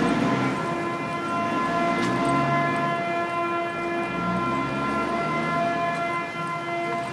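An unexplained 'strange sound': a steady, horn-like drone made of several held tones sounding together, with a lower, deeper layer that shifts up and down in pitch in slow steps.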